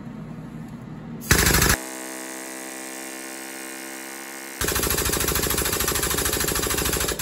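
Pneumatic air-over-hydraulic bottle jack on a shop press, its air pump rattling rapidly as it drives the ram down and builds pressure on a seized piston wrist pin. A short burst of rattling comes about a second in. A quieter steady hum follows, then a longer run of rattling from about halfway to the end.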